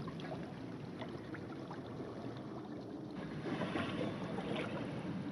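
Water washing along the hull of a sailing yacht moving slowly under sail, with a few faint ticks. It grows a little louder about three seconds in.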